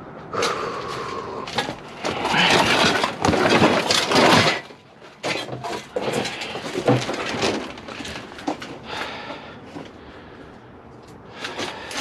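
Junk and scrap being dug through and moved by hand: a few seconds of dense rattling and scraping, then scattered knocks and clinks.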